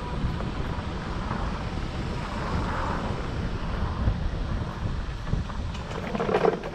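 Wind buffeting the microphone: a steady, uneven low rumble with a faint rush of air. A brief louder burst of noise comes near the end.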